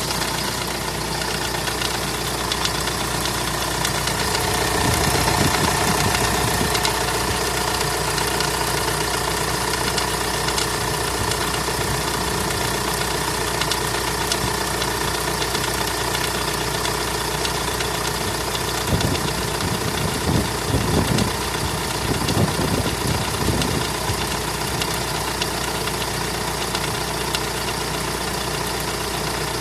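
Mitsubishi L200 pickup engine idling steadily on a cold start, with a knock that the owner hears only while the engine is cold.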